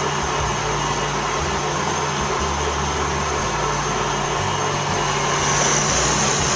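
Electric stand mixer running at high speed, its wire whisk whipping cream with sugar in a stainless steel bowl: a steady motor whir with a constant low hum, slightly louder and brighter near the end.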